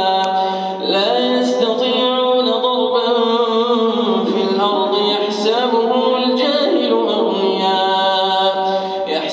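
A man reciting the Quran in the melodic tajweed style, drawing out long ornamented notes that step up and down in pitch.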